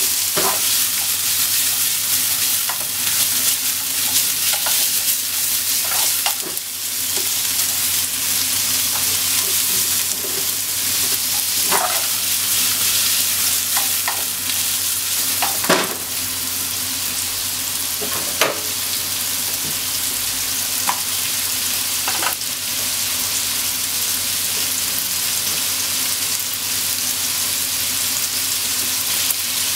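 Pork belly pieces sizzling in hot fat in a frying pan while being stirred with chopsticks, a steady hiss broken by a few sharp clicks.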